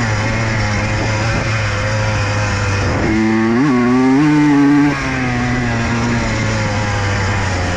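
Honda CR125 two-stroke dirt bike engine running at steady revs. About three seconds in it revs higher, with a quick blip, then drops back to a steady lower note after about two seconds.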